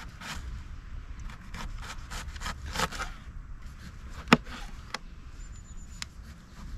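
Kitchen knife slicing an onion and then a tomato on a plastic cutting board, the blade knocking lightly on the board again and again, with one sharper knock about four seconds in.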